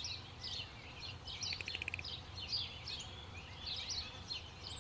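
Small birds chirping and twittering over and over, with a short buzzy trill about one and a half seconds in, over a steady low background rumble.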